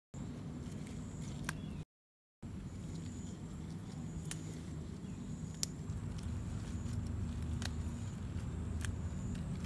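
A few sharp clicks, about five spread over the stretch, as amaranth stems are snapped off by hand, over a steady low rumble. The sound cuts out for about half a second around two seconds in.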